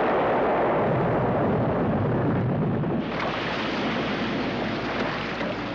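The aftermath of a large explosion in the sea: a noisy rumble slowly dying away, then a steady wash of water noise from about three seconds in.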